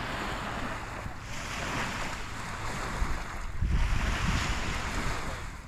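Lake waves washing onto a sandy beach, with wind buffeting the microphone in gusts; the strongest gust comes a little past halfway.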